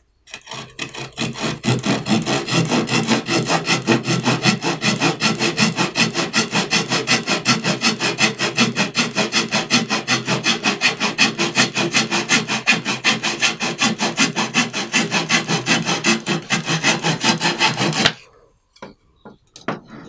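The saw blade of a Leatherman Surge multitool cutting through a strip of pine with fast, even back-and-forth strokes. The strokes come several a second and stop near the end.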